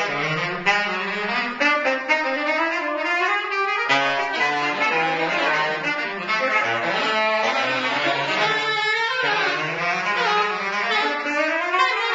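Saxophone ensemble playing live, several saxophones sounding together in close, sliding lines that climb in pitch, with a brief break about four seconds in.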